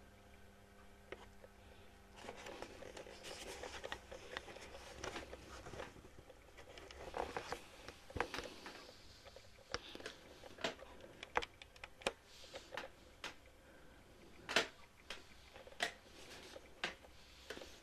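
Scattered light clicks and brief rustling, handling noise in a small room, with the clicks spread irregularly and a couple of short rustling stretches.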